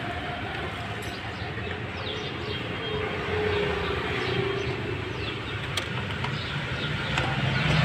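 Steady low rumble of a motor vehicle engine running, with a faint whine in the middle and a few faint high chirps.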